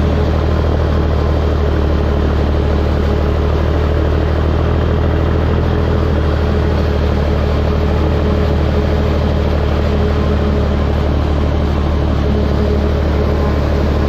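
Steady, heavy diesel drone of a John Deere self-propelled forage harvester chopping corn for silage, together with the truck running alongside it as it is filled, with a strong low hum.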